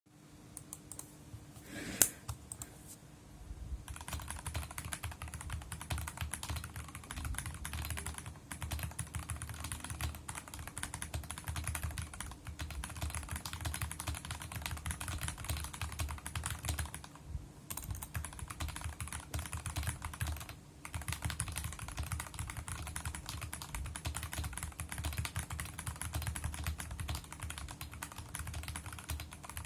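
Fast continuous typing on a Maxfit81 mechanical keyboard with stock, unlubed Gateron Pro 2.0 Yellow linear switches and PBT Cherry-profile keycaps. A single sharp knock comes about two seconds in, the typing starts about four seconds in and pauses briefly twice.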